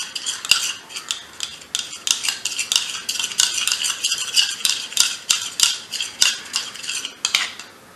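A spoon stirring honey and lemon juice in a bowl, clinking and scraping against the bowl about three times a second, until it stops near the end.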